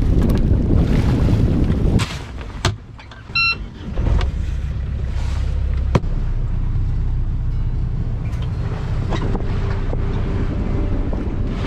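Sailboat's inboard engine running steadily under way, with wind rushing over the microphone in the first two seconds and a short electronic beep about three and a half seconds in.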